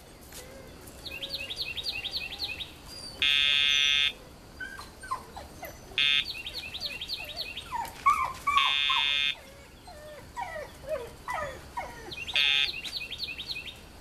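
Labrador pup whining in short, falling whimpers, repeated many times. Four short, steady buzzes from the Dogtra e-collar's pager sound in between, each lasting about half a second to a second.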